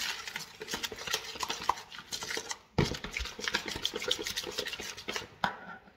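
A spoon stirring and scraping a thick spice marinade around a plastic mixing bowl in quick strokes. There is a brief pause and a thump about halfway through, then the stirring stops just before the end.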